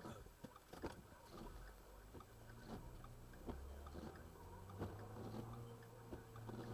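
Faint low hum with scattered small clicks and taps, typical of handling noise on a handheld recording.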